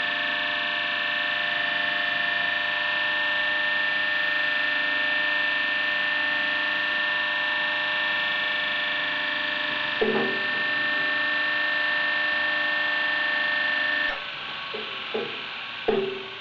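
Old Bergmann slip-ring three-phase induction motor, built around 1920, running with its slip rings shorted: a steady hum with a high whine. About fourteen seconds in, the whine cuts off suddenly and the sound drops. Single knocks come about ten seconds in and again near the end.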